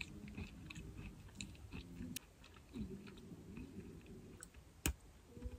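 Crunchy chocolate-coated biscuit sticks being bitten and chewed close to the microphone: soft repeated crunches, with one sharp click about five seconds in.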